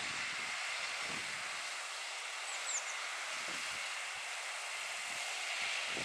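John Deere 6230 tractor's diesel engine working steadily under load as it pulls a mounted reversible plough, heard from a distance as an even drone. A few short, high bird chirps come a little before the middle.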